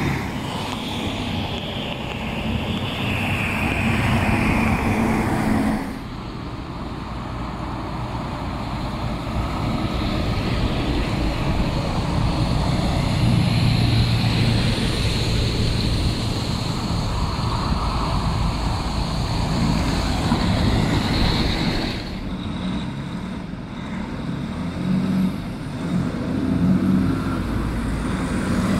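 Heavy diesel dump trucks loaded with snow driving past one after another, engines running with steady road and tyre noise. The sound changes abruptly about six seconds in and again about three-quarters of the way through.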